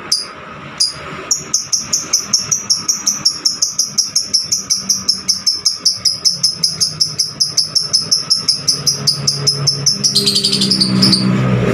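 Lovebird chirping: a few single high chirps, then a long fast run of chirps at about six a second, breaking into a denser, harsher burst near the end.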